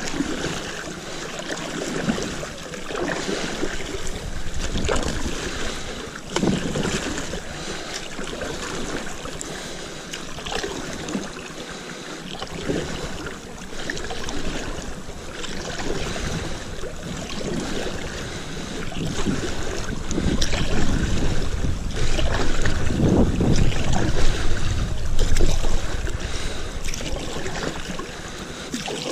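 Stand-up paddleboard paddle strokes splashing in calm river water, with water running along the board's nose, in an uneven rhythm every second or two. Wind buffets the microphone, heavier a little past the middle.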